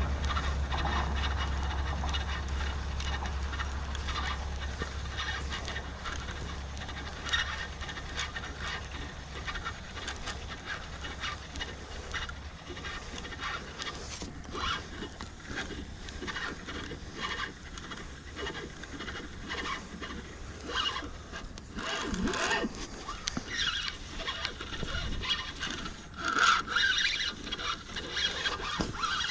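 Irregular scraping, rubbing and clicking of a fishing rod and reel being worked while fighting a hooked catfish. Wind rumbles on the microphone for the first dozen seconds.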